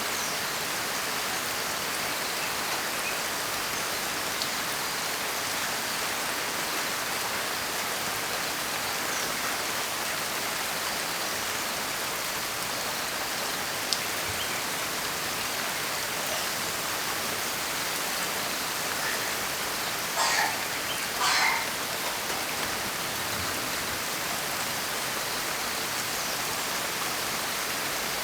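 Steady rainfall, an even hiss of many drops, with two brief louder bursts close together about two-thirds of the way through.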